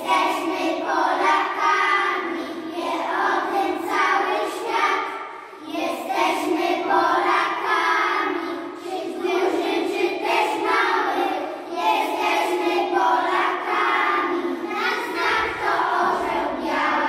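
A group of young children singing a song together in unison, in continuous sung phrases.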